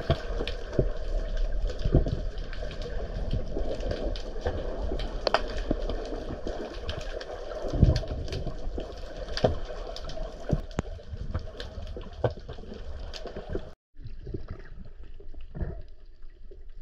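Underwater reef ambience full of fine crackling from small fish grazing on the rocks, mullet and small wrasse, with louder sharp clicks scattered through it from ballan wrasse crunching shellfish. About three-quarters of the way through, the sound drops out briefly and comes back duller.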